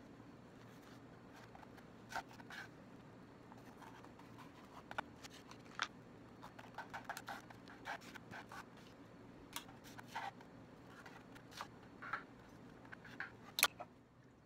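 Chef's knife slicing bell peppers on a wooden cutting board: irregular knocks and scrapes of the blade against the board, with a faint steady low hum underneath.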